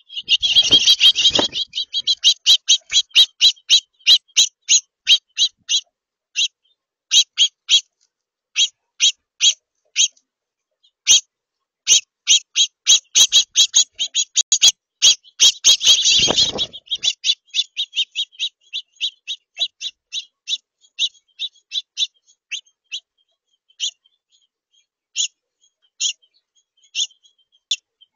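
Small songbird giving a long series of short, sharp, high chip calls, a few a second and at times in quick runs, thinning out toward the end. Brief rustling bursts, like wings beating close to the microphone, come about a second in and again about two-thirds of the way through.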